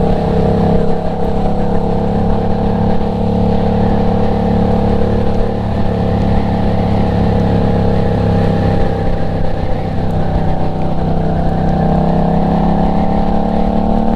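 Motorcycle engine running under way at a steady cruise, its pitch creeping slowly upward as the bike gains speed.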